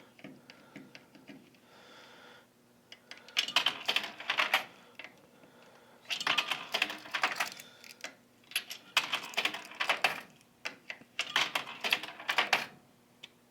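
Rapid clicking like typing on a keyboard, in four bursts of a second or more each, with quiet gaps between them.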